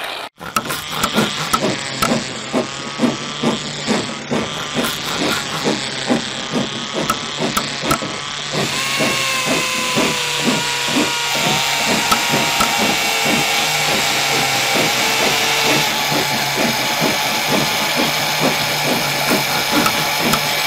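Construction sound effects: rapid, regular knocking at about three strokes a second, with a power-tool whine joining about halfway through and dropping away later, leaving a steady mechanical hum.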